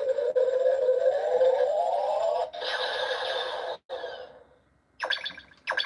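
Buzz Lightyear talking action figure playing an electronic sound effect through its small, tinny speaker: a rising whine for about two and a half seconds, then a hissing burst of about a second that dies away. A short bit of voice starts near the end.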